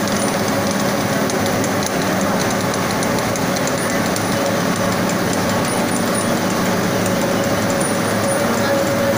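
Fabric-dyeing jigger machine running steadily, winding wet cloth from roller to roller through the dye bath: an even, loud mechanical running noise with a faint steady whine and light ticking.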